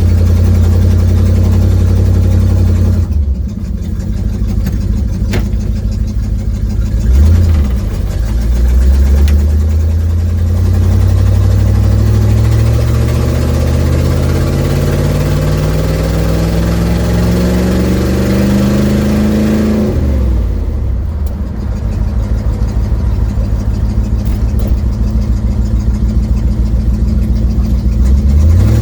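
1972 Ford Mustang engine with an exhaust leak, heard from inside the car while driving. It runs steadily, drops off about three seconds in, then climbs in pitch for some twelve seconds under acceleration. Around twenty seconds it falls back to a low, pulsing run and picks up again near the end.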